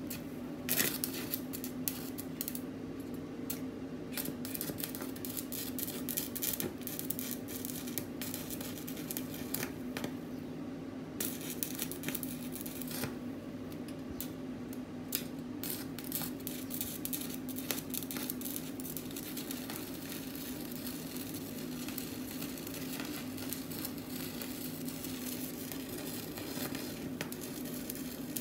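Stick (arc) welding: the arc crackling and sizzling steadily, dotted with frequent sharp pops, over a low steady hum.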